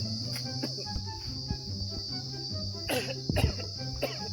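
Insects chirping in a steady high-pitched trill, with low background tones and a few sharp knocks a little after the middle.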